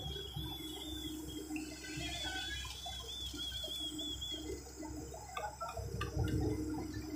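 Hitachi hydraulic excavator's diesel engine running while wet concrete slides out of its bucket into the rebar formwork with a watery sloshing. A thin, high warbling chirp comes and goes in the first half, and a few knocks follow near the end.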